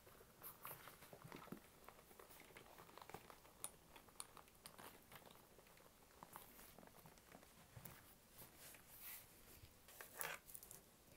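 Faint handling sounds of a Coach Dinky 24 glovetanned leather bag: scattered light taps, clicks and rustles as hands touch the leather flap, the turn-lock and the metal chain strap, with a slightly louder cluster about ten seconds in as the chain is laid down.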